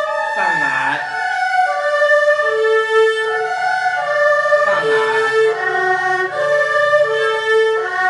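Erhu bowed through a broken-chord sequence exercise: a run of separate notes stepping up and down through do-mi-sol patterns, with two audible sliding shifts, about half a second in and about five seconds in.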